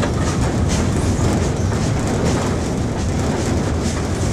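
Wood-fired steam locomotive running slowly, heard from aboard: a steady rumble and rattle of the running gear on the rails, with a faint regular beat about twice a second.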